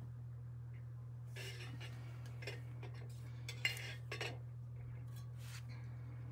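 Scattered light clicks, knocks and rustles of someone shifting position and handling a tripod, with a sharper click a little past halfway, over a low steady hum.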